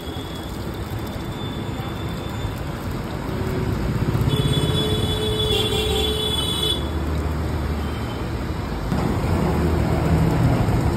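Street traffic: engines rumble past and a vehicle horn sounds from about four to seven seconds in. Underneath runs a steady hiss from ghevar batter frying in ghee.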